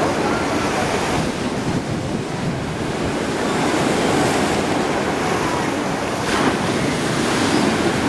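Black Sea waves washing steadily onto the shore, with wind buffeting the microphone.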